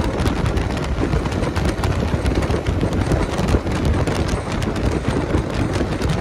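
Side-by-side UTV driving over a rocky trail: engine and tyre noise with gravel and rocks clicking and knocking against the machine, and wind buffeting the microphone.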